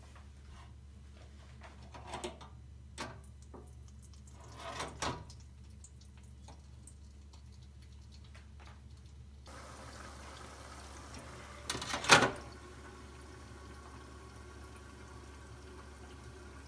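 A few light metal clinks from a deep-fryer's wire basket. Just over halfway through, a steady sizzle of hot oil frying stuffed bulgur meatballs (içli köfte) starts and runs on. A couple of seconds later comes one loud clack as the fryer's lid shuts.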